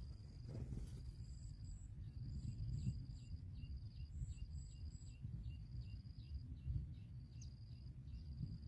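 Natural outdoor ambience: a steady high trill with short chirps repeating several times a second, and groups of very high pulses, over a low rumble.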